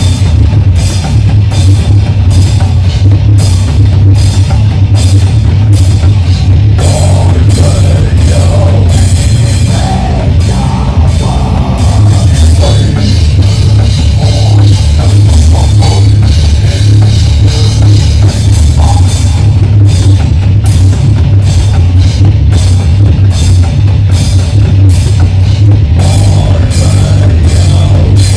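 A death metal band playing live and very loud, heard from a camera beside the drum kit. Constant drum and cymbal hits sit over a heavy low-end rumble, and the level stays near full scale throughout.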